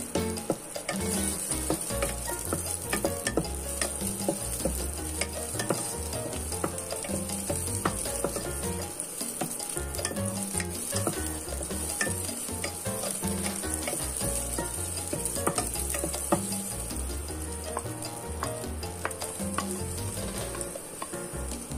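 Onions frying in hot oil in a nonstick pot: a steady sizzle with frequent clicks and scrapes as a wooden spatula stirs them against the pan.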